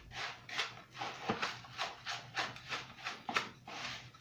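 Wooden spoon stirring and scraping a moist meatball mixture of minced meat and milk-soaked bread in a bowl, in a steady rhythm of about three strokes a second.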